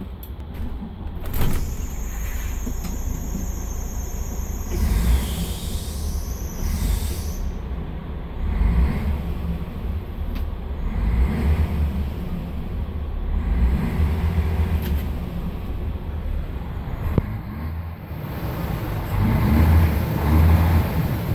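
Mercedes-Benz Citaro O530 bus's 12-litre OM457hLA six-cylinder diesel engine pulling hard under full throttle, heard from the driver's cab. The deep engine rumble swells and drops several times as the bus accelerates.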